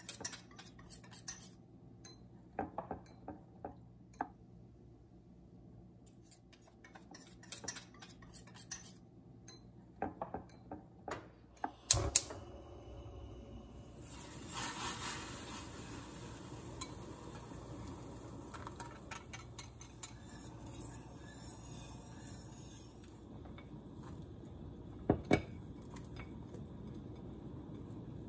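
A metal spoon clinking and scraping against a glass bowl while mixing cornstarch starch water, then a sharp knock about twelve seconds in. A steady hiss follows as a saucepan of sauce heats on a lit gas burner, with a couple of loud knocks of utensils against the pot near the end.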